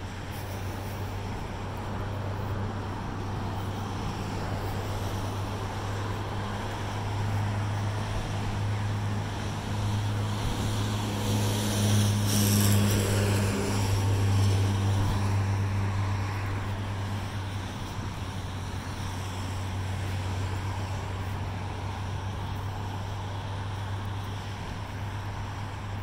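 Road traffic going by on a city boulevard. One vehicle passes close about halfway through, swelling and then fading away.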